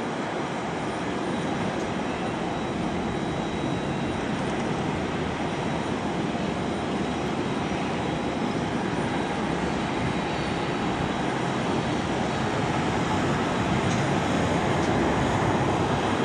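Jet engines of a Boeing 767-300ER widebody at taxi power, heard from a distance: a steady rushing noise with a faint high tone, growing gradually louder as the aircraft taxis closer.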